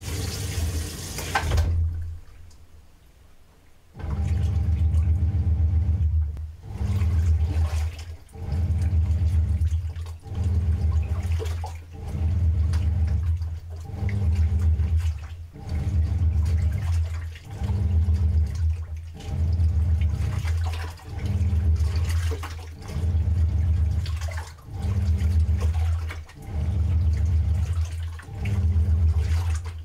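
Washing machine running its wash cycle: water sloshing in heavy low surges that repeat about every two seconds. A short hiss comes first, then a brief quiet before the surges begin.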